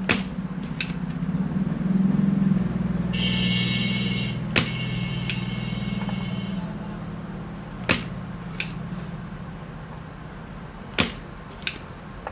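Spring-loaded desoldering pump being cocked and fired while the amplifier IC is desoldered from the TV board: four pairs of sharp snaps, the two in each pair under a second apart, over a steady low hum. A higher whine runs for about three seconds in the middle.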